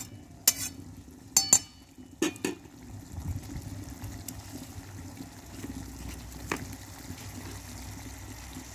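A few sharp metallic clinks of a utensil against the aluminium kadai in the first two and a half seconds, then the thick mutton masala simmering quietly in the pan, with one more click about six and a half seconds in.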